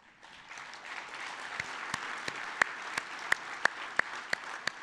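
Audience applauding, the clapping building in the first second. From about a second and a half in, one person's claps ring out sharply close to the microphone, about three a second.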